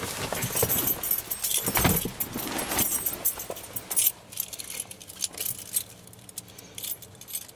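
A bunch of keys jangling, with clicks and rattles, most busily in the first three seconds and then in sparser jingles.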